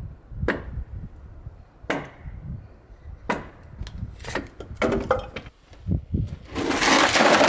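Hollow wooden knocks: three single knocks about a second and a half apart, then a quick run of clattering knocks. Near the end a loud, dense rustling noise sets in.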